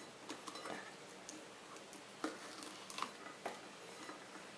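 Hands peeling the skin off a ripe avocado half: faint, scattered small clicks and soft peeling sounds, about five clicks in all.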